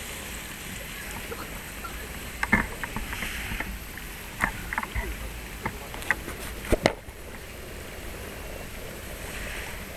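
Steady outdoor harbourside background with a low rumble, broken by a handful of sharp clicks and knocks between about two and seven seconds in.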